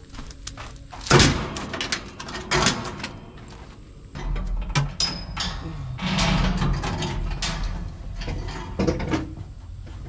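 Rusty roller drive chain rattling and clanking against steel as it is handled and fed back onto a combine's sprockets, with sharp metal knocks at intervals. A low steady hum joins it from about four seconds in.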